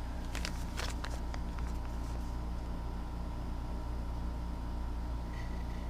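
Steady low hum, with a few faint clicks in the first second and a half from handling plastic lure packaging.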